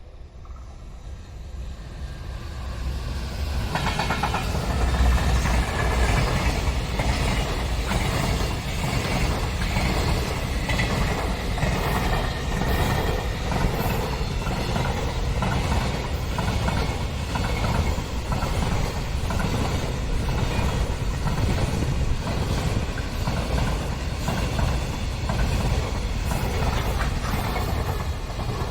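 Train passing on the rails: the noise builds over the first few seconds, then runs loud and steady with a repeated clatter of wheels over the rail joints.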